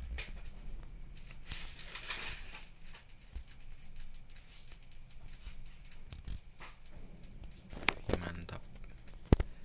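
Scattered rustling and crinkling with a few irregular sharp clicks, the loudest shortly before the end, and a short hiss about two seconds in.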